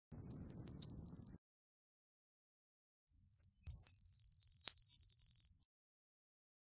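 Eurasian blue tit singing: two song phrases, each a few thin, high notes stepping down into a fast, lower trill. The second phrase, about three seconds in, is longer and ends in a long, even trill.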